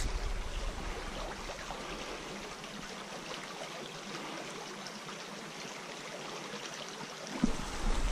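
Small creek trickling steadily. Wind buffets the microphone at the start and again near the end.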